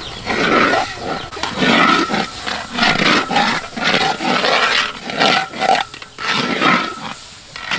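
Metal spatula scraping and stirring eggs in a large wok, with sizzling, in repeated rasping strokes about twice a second.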